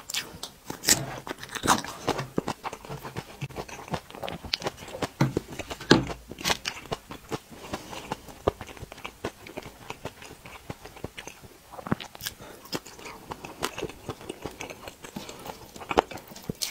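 Close-miked eating: chewing and biting of food, with many short clicks and smacks from the mouth.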